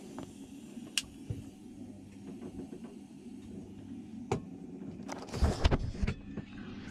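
Handling noises from hands working the wiring at a diesel engine's starter solenoid: a few sharp clicks, then a louder burst of rustling and knocking about five seconds in, over a faint steady low hum. The engine is not running.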